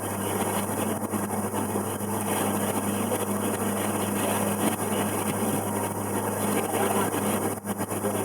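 River cruise boat's engine running steadily: a constant low hum under a wash of noise, with a few brief dips near the end.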